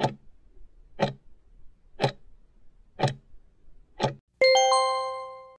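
Countdown timer sound effect: five clock ticks one second apart as the timer runs to zero, then a bell-like chime marking time up, ringing on and fading.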